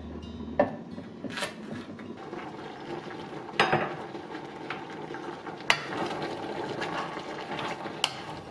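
Stainless steel pot of eolgali (young cabbage) simmering in soybean-paste broth, a steady bubbling hiss, broken by a few sharp clinks and knocks against the pot as it is stirred with a wooden spoon.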